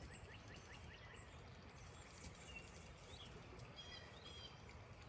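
Quiet outdoor ambience: a faint steady hiss with small birds chirping in the background, a quick run of short rising chirps in the first second and a few higher, thin notes about four seconds in.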